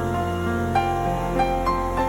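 Gentle new-age background music: held tones with a few soft piano-like notes struck over them, three in the second half.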